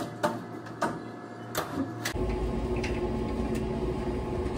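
Restaurant kitchen work sounds: a handful of sharp clacks and knocks of things being handled at the counter in the first two seconds, then a steady mechanical hum with a low rumble from kitchen equipment.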